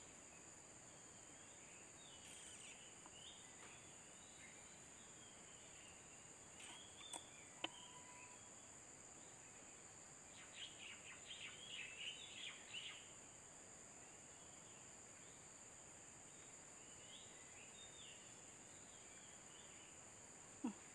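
Quiet outdoor ambience: a steady high insect drone with faint bird chirps, busiest between about ten and thirteen seconds in. A single sharp click comes about seven and a half seconds in.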